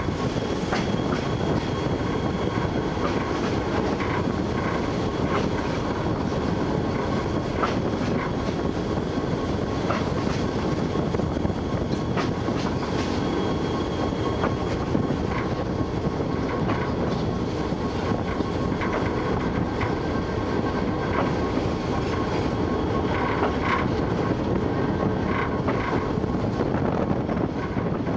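Model train running on three-rail tubular track, heard from a camera riding on the train: a steady rumble of wheels and motor with irregular clicks as it passes over the rail joints.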